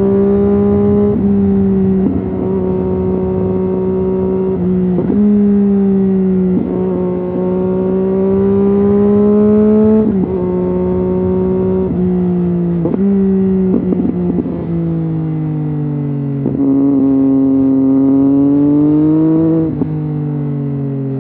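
Triumph Street Triple's 675 cc inline-three engine through an aftermarket Arrow exhaust, riding through bends: the engine note climbs under throttle, then drops sharply at each gear change or roll-off, about ten times, with brief throttle blips and crackle around the middle.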